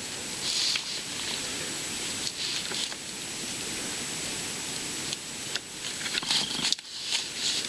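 Steady background hiss, with a few brief rubbing and rustling sounds as hands push rubber fuel lines onto a chainsaw's purge bulb and carburetor.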